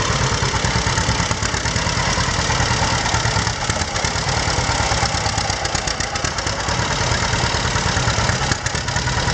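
Early unstyled John Deere Model B tractor's two-cylinder engine running steadily with an even, rapid exhaust beat as the tractor is driven at low speed.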